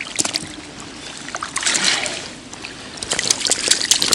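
Lake water splashing and dripping as the caught fish are handled for release, with a swell of splashing about two seconds in and a quick run of small drips and clicks near the end.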